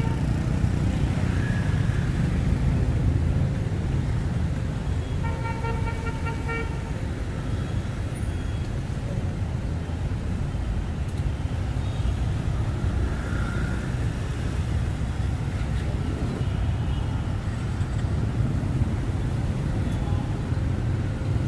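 City street traffic: a steady rumble of passing vehicles, with a vehicle horn sounding once for over a second about five seconds in.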